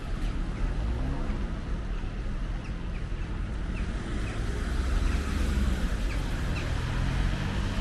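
Wind buffeting the microphone over outdoor street noise, a steady low rumble, with faint short chirps repeating in the background.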